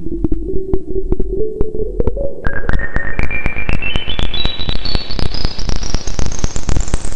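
Roland S-1 synthesizer playing a single tone that climbs in small steps, from low to very high, with a sudden jump up about two and a half seconds in. Under it runs a low rumble with dense clicking pulses that grow thicker as the pitch rises.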